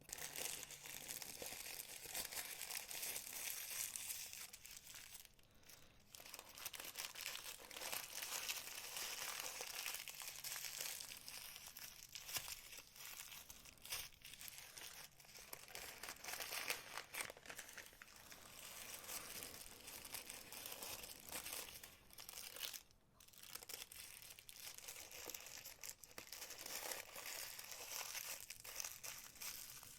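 Paper and plastic zip bag wrappings crinkling and rustling in the hands as jewellery clasps are unwrapped and handled, with small clicks throughout.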